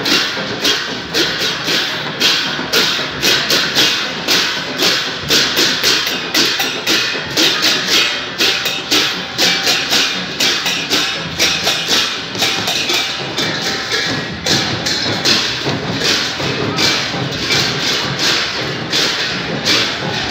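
Festival procession percussion: drums and clashing cymbals beating a steady, loud rhythm of about two to three strikes a second.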